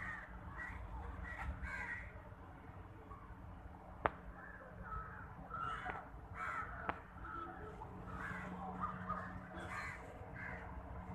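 Crows cawing repeatedly in short calls over a steady low hum, with a sharp click about four seconds in and another about seven seconds in.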